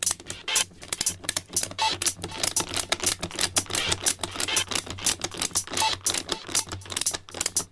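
Rapid, irregular plastic clicking, many clicks a second like typing, from the flip-clock kit.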